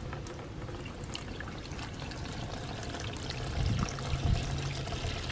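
Stale, years-old gasoline pouring out of a small steel tractor fuel tank's filler hole into a bucket. It starts as a thin trickle and grows to a fuller, louder stream about three and a half seconds in.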